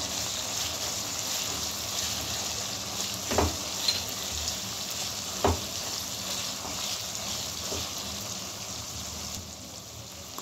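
Half-cooked minced beef (kheema) sizzling as it fries dry in a nonstick wok, being stirred with a spatula. There are two sharp knocks of the spatula on the pan, about three and a half and five and a half seconds in.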